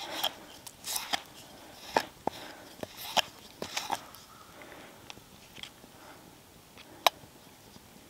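A knife scraping butter out of a small tin and tapping against it: a run of light clicks and short scrapes over the first few seconds, then a couple of isolated sharp clicks later.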